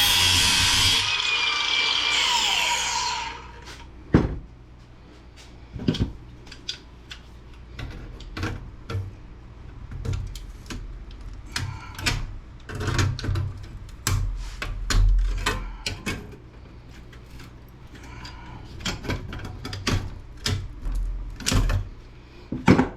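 A power tool runs loudly for about the first three seconds, its whine falling as it stops. Then come scattered sharp clicks and knocks of metal parts being handled and pried.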